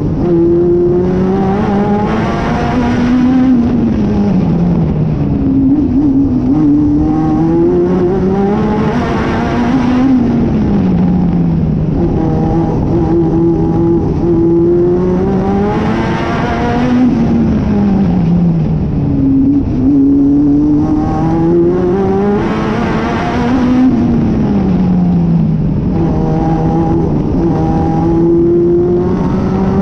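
National Hotrod race car engine heard from on board, revving up along each straight and dropping in pitch as the driver lifts for each bend, about every six to seven seconds, lap after lap.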